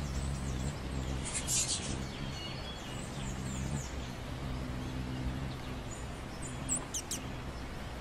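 Hummingbirds giving short high chirps, one cluster about a second and a half in and another near the end, over a steady low hum.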